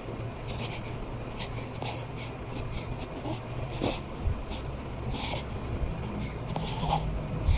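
A newborn baby snoring in her sleep: a series of short, irregular nasal snorts, honks and little whimpers, roughly one a second.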